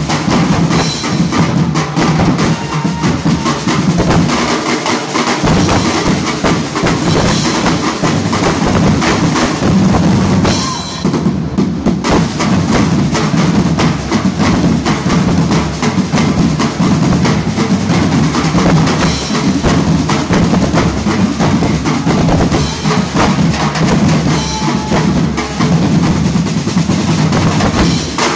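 An Ati-atihan drum corps playing a fast, dense rhythm on metal-shelled snare, tenor and bass drums with cymbal crashes. The drumming eases briefly about eleven seconds in, with the cymbals dropping out, then picks up again.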